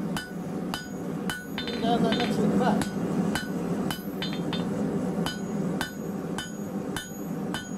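Blacksmith's hand hammer striking a red-hot steel bar on an anvil, about two blows a second, each with a short metallic ring. The edge of the hammer is being used to draw out and thin the hot metal.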